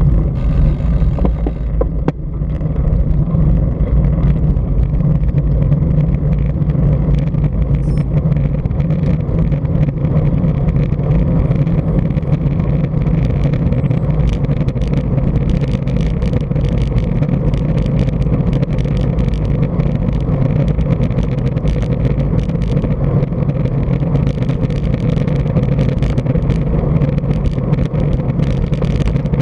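Steady wind rumble on a handlebar-mounted action camera's microphone, mixed with road noise from the bike's tyres, as the road bike rides along at speed. Loud and even, with a brief dip about two seconds in.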